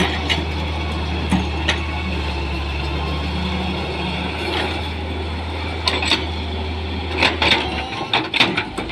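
Daewoo excavator's diesel engine running steadily as the machine swings, dumps and digs soil, with a number of sharp knocks from the bucket and arm, several of them in the second half. The low engine drone drops away about eight seconds in.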